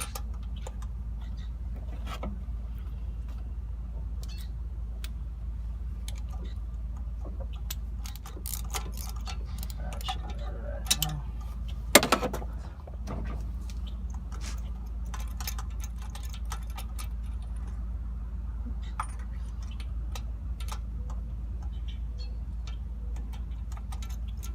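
Scattered metallic clicks and clinks of a ratchet and socket working a spark plug loose, with a sharp knock about halfway through, over a steady low hum.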